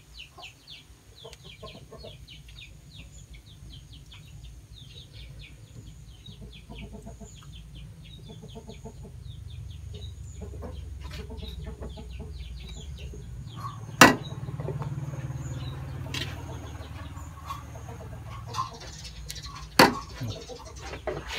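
Metal spatula scraping and scooping fried rice in an aluminium wok, with two sharp metallic clanks of the spatula on the wok, one past the middle and one near the end. Chickens cluck in the background.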